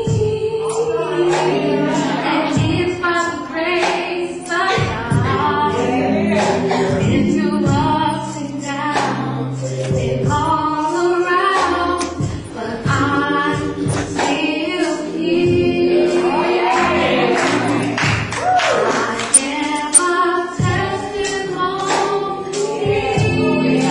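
Female singers performing a gospel song live, several voices together over low held notes. Two short, sharp knocks stand out late on.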